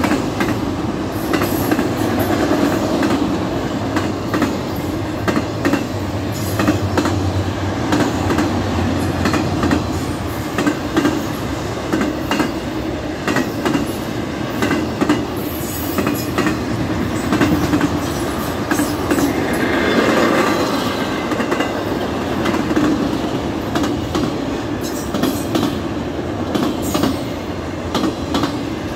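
Freight train cars rolling past close by: a steady rumble of wheels on rail, broken by frequent irregular clicks and clanks as the wheels pass over the rail joints.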